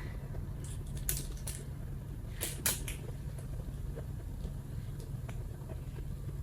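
Zippo lighters being handled: a few light clicks and taps, bunched in the first three seconds, over a steady low hum.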